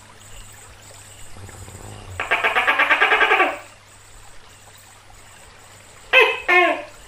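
Tokay gecko calling: a long, rapidly pulsing call of over a second about two seconds in, then two short syllables of its "to-kay" call about six seconds in.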